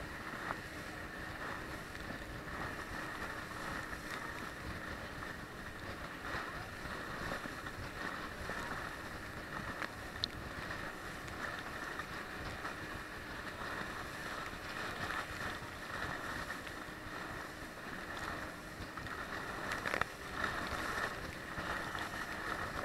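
Steady rush of water and wind past a banana boat towed at speed across the sea, with a faint low hum running underneath.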